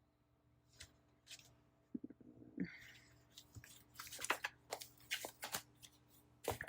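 Paper handling: a series of short rustles, crinkles and light clicks as planner pages and sticker sheets are worked by hand, starting about a second in.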